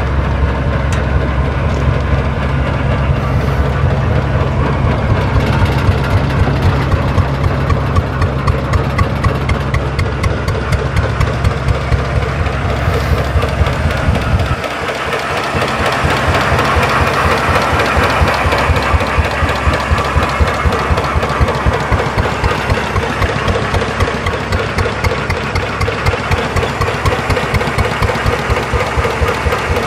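Arrow natural-gas engine running steadily while driving a pumpjack, a chugging run with evenly spaced firing pulses. A deep rumble under it drops away suddenly about halfway through.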